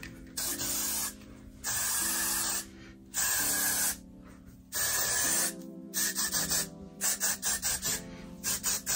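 got2b aerosol hairspray sprayed onto a synthetic wig: four hissing blasts of about a second each, then a quick run of short spurts, several a second, in the second half. Background music plays throughout.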